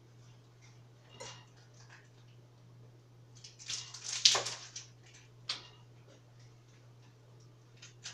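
Pots and utensils being handled on a stovetop: a few scattered clinks and knocks, with a burst of clattering about four seconds in. A steady low hum runs underneath.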